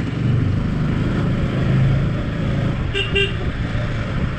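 Motorcycle engine running at low speed, with a steady drone. About three seconds in, a horn gives two short toots in quick succession.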